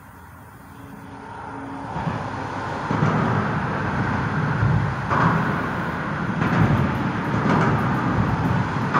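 Highway traffic crossing the overpass overhead: a rumble of tyres and engines that builds over the first few seconds, then swells and ebbs as vehicles pass.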